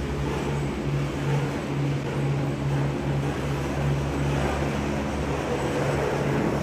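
Steady low mechanical hum of large running machinery, its low drone throbbing evenly a little under twice a second under a haze of general noise.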